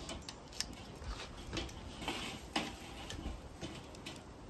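Scattered light clicks and ticks, a few a second and unevenly spaced, from metal tongs knocking on a charcoal kettle grill's wire cooking grate as chicken pieces are turned.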